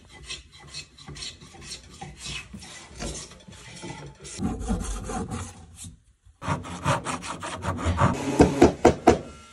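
A hand tool worked back and forth in short strokes along a bass guitar's maple fingerboard during a refret. After a brief break about six seconds in, a fret saw works in a fret slot with quicker, louder strokes.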